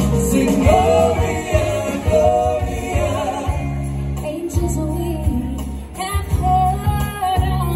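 Music with singing: a sung melody moving over sustained low notes.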